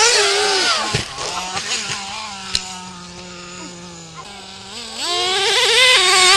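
Nitro RC truck's small glow-fuel engine revving in high, wailing bursts, with a sharp thud about a second in. It settles to a steady lower note for a few seconds, then revs hard again near the end.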